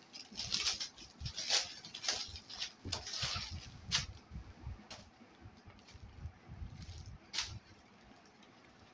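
Clear plastic packaging bag crinkling in a run of rustles as a car seat cover is pulled out of it, then softer rustling of the fabric cover being unfolded, with one sharp rustle near the end.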